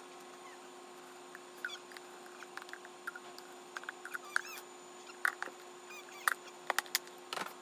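Formula being made up: plastic clicks and taps as a scoop, a powder container and a feeding bottle are handled, with a short clatter near the end. A few short high-pitched squeaks come in between, over a faint steady hum.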